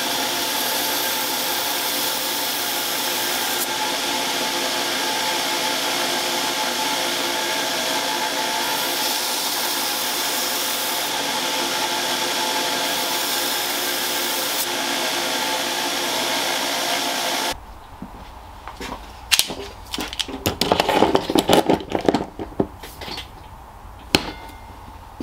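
Belt grinder running steadily while a knife blade is ground on its rotary platen wheel to convex the bevels. It cuts off suddenly about 17 seconds in, and scattered sharp metal clicks and knocks follow as the blade and a clamp are handled on a workbench.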